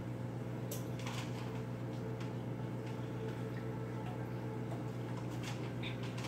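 Steady electrical hum of aquarium equipment, such as an air pump or filter, with a few light clicks scattered through it.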